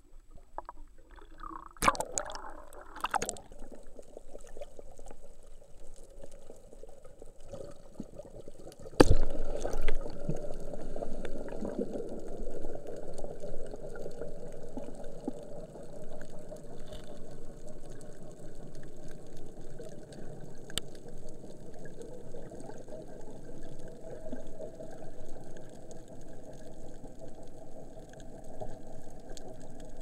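Muffled water sloshing and bubbling around an action camera held underwater, with splashy crackles in the first few seconds and a sharp knock about nine seconds in. After the knock comes a steady low rush of water.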